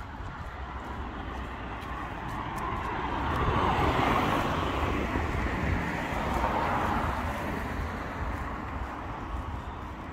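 A car passing on a wet road: its tyre and engine noise swells from about two seconds in, is loudest in the middle, and fades away near the end, over a steady low traffic rumble.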